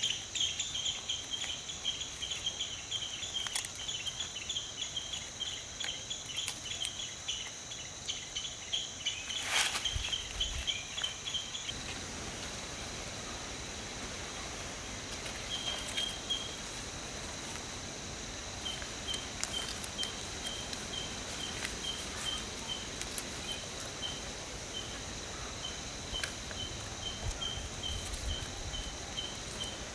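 Insects droning steadily at a high pitch, with a chirp repeating about three times a second that drops out midway and returns. Over this come scattered crinkles of fresh banana leaf being folded and tied around marinated chicken, the loudest near a third of the way in.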